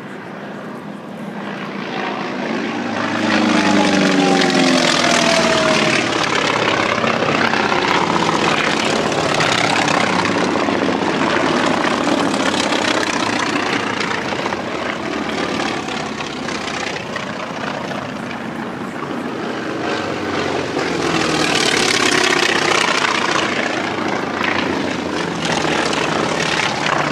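Airplanes flying low past at an air show. The engine noise swells to a loud peak about four seconds in, with its pitch sliding down as the aircraft goes by, eases off, then swells again with a second pass about twenty-two seconds in.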